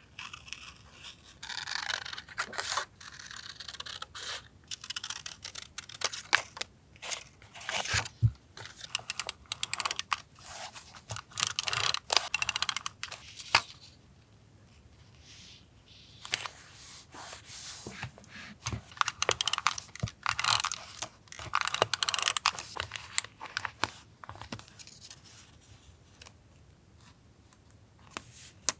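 Paper being torn and handled in irregular short bursts, with a brief lull about halfway through.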